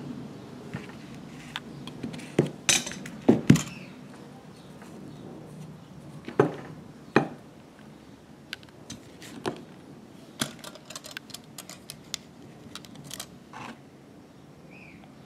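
Handling knocks and clicks of a plastic PVC pipe being moved about and set down on a wooden board. There is a cluster of loud knocks about two to three and a half seconds in, a couple more around six to seven seconds, then a run of lighter, quicker clicks.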